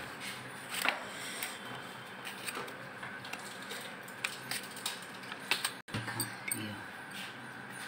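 Metal vegetable peeler scraping the skin off an unripe green mango, a run of small irregular scrapes and clicks.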